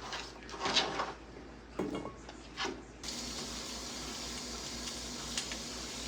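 A few short kitchen handling noises, then, from about halfway, a steady rushing hiss of a kitchen tap running into the sink.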